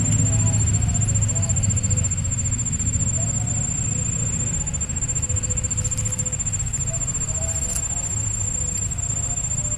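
Steady high-pitched insect trill, like a cricket or cicada, running without a break over a low steady rumble.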